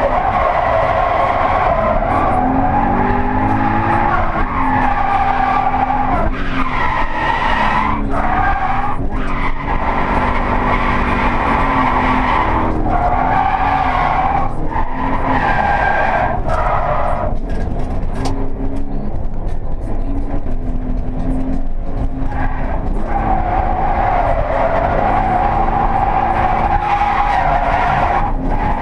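Toyota 86 (ZN6) with its stock 2.0-litre flat-four, heard from inside the cabin, revving hard under load while the rear tyres squeal through long drift slides. The squeal breaks off briefly several times between slides as the engine note rises and falls.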